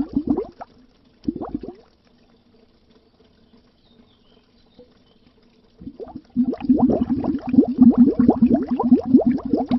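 Underwater bubbles: a rapid stream of low bubbling pops. It stops about half a second in, gives one short burst, falls quiet for about four seconds, then starts again and runs densely to the end.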